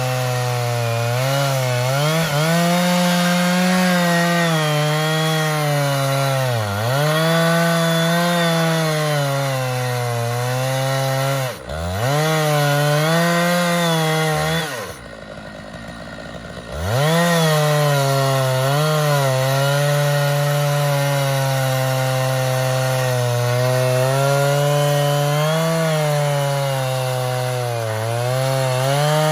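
Stihl 660 Magnum two-stroke chainsaw running at high revs under load in an Alaskan chainsaw mill, ripping lengthwise through a log. Its pitch sags and recovers over and over as the cut loads the engine. The engine sound drops away briefly about halfway through, then comes back.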